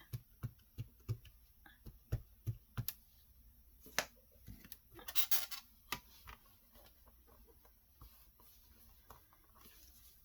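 Rapid light taps and clicks of rubber stamping: a stamp being dabbed on an ink pad to re-ink it and pressed, with a brief rustle about five seconds in. The taps thin out to a few faint ticks after about six seconds.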